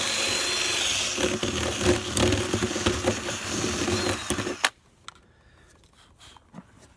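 Power drill boring into the edge of a wooden door to cut the mortise for a sash lock, running steadily with crackling as the bit cuts, then stopping suddenly about two-thirds of the way through; a few light knocks follow.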